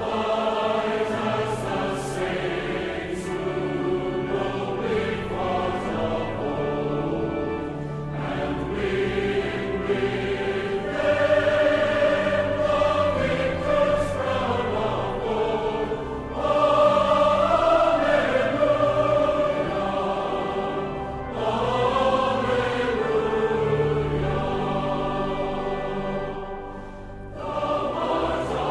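Choir singing a slow piece in long phrases of held notes.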